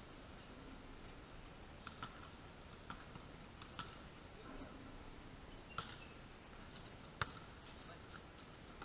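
A volleyball struck by a hand: one sharp slap about seven seconds in, among faint scattered footsteps and small clicks on a concrete court.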